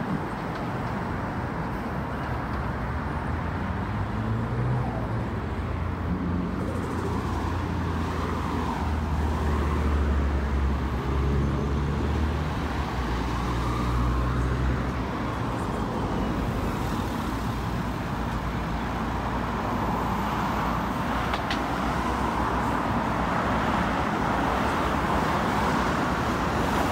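Road traffic: a steady wash of car noise along a city street, with a low engine hum from a nearby vehicle through the first half.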